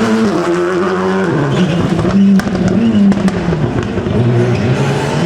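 Rally car engine revving hard, its pitch changing through the gears. A loud crack and several sharp pops come about two to three seconds in, then the revs drop low and climb again.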